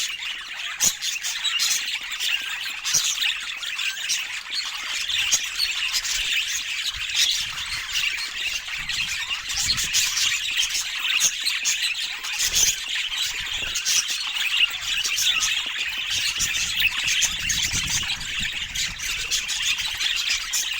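Several budgerigars chattering and squawking continuously, a dense, busy stream of warbles, chirps and sharp calls.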